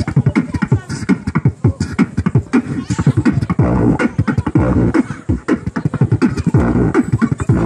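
Beatboxing into a handheld microphone: a fast, unbroken run of mouth-made kick and snare sounds, with a low hummed bass tone held for about a second near the middle and again briefly near the end.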